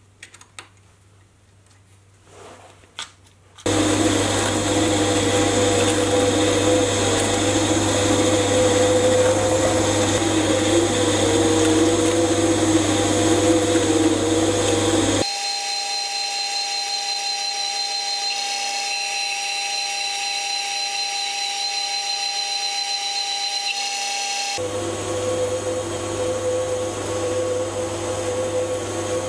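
A few small clicks from a hex key setting a cutting tool in a mini lathe's toolpost. Then the lathe starts and turns a steel shaft: a steady motor whine with cutting noise. About 15 seconds in the sound switches abruptly to a thinner, higher steady whine, and it switches back to the fuller running sound near the end.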